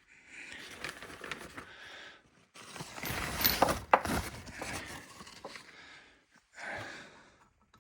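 Hands handling small metal parts of a disassembled hydrostatic transmission: irregular scraping and rustling, with two sharp clicks about three and a half and four seconds in.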